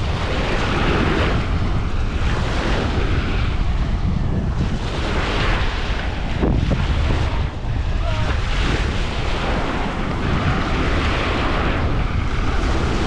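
Wind rumbling on the microphone over surf washing onto a sandy beach. The wash of the waves rises and falls every couple of seconds.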